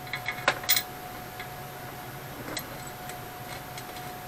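A few small metal clicks and taps as a mounting bolt is started by hand through the lathe's cast-iron foot and chip pan: a quick cluster in the first second and one more about halfway through. A faint steady hum runs underneath.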